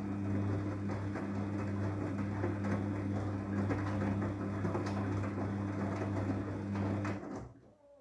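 Daewoo DWD-FT1013 front-loading washing machine turning its drum during the softener rinse: a steady motor hum with wet laundry churning in the drum, which stops about seven seconds in as the drum comes to rest.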